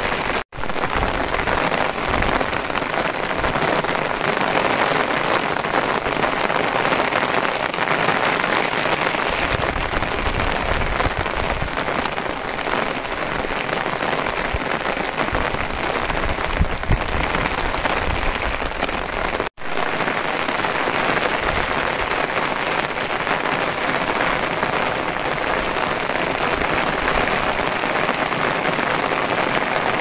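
Steady rain falling, an even hiss of drops, broken by two very brief gaps, one soon after the start and one about two-thirds of the way through.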